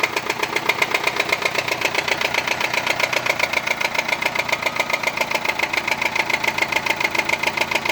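Nissan Sunny engine idling with a fast, even 'tak tak' ticking knock. The engine is not misfiring; the mechanic takes the noise for an internal engine sound.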